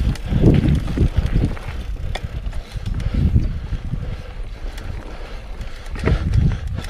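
Mountain bike riding a dirt trail: wind buffeting the camera microphone over an uneven low rumble from the tyres, with scattered light clicks and rattles.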